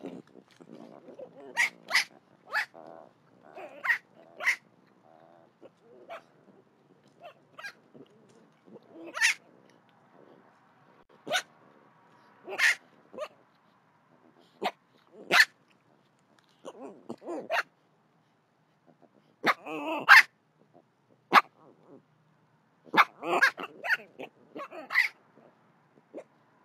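Baby collared peccaries (javelina) giving short, sharp bark-like squeals in irregular bouts, sometimes several in quick succession and sometimes a few seconds apart. They sound unhappy.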